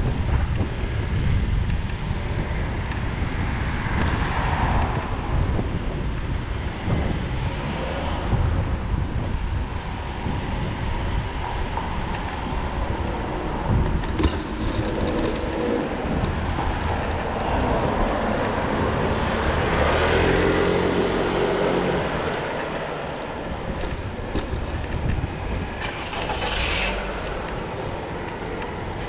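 Road traffic passing a moving bicycle, with a steady rumble of wind on the microphone. Vehicles swell past several times, the biggest about twenty seconds in.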